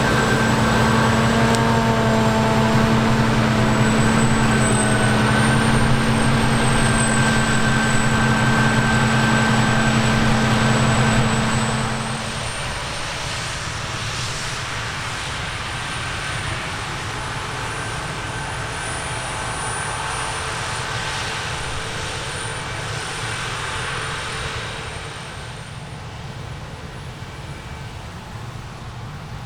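Heavy diesel harvest machinery running with a steady low engine hum and a high whine. The hum drops sharply about twelve seconds in, and the sound fades further near the end.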